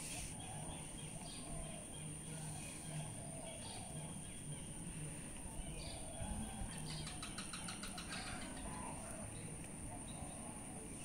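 Faint outdoor ambience with distant birds chirping now and then, a quick ticking trill about seven seconds in, over a steady high-pitched whine.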